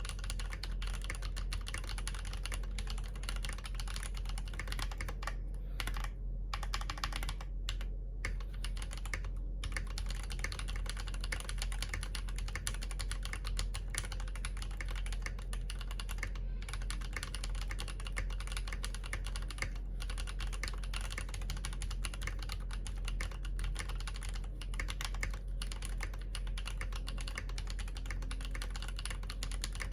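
Typing on an Akko MOD001v2 mechanical keyboard with Yok Panda tactile switches on a polycarbonate plate: a fast, steady stream of keystroke clacks, with a few short pauses about six to nine seconds in.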